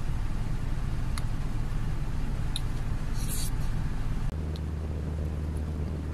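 Steady low hum of a 4-tonne truck's engine idling, heard inside the cab; about four seconds in the hum steps down and gets a little quieter. A few light clicks and a brief scrape come from a plastic spoon against a plastic food container.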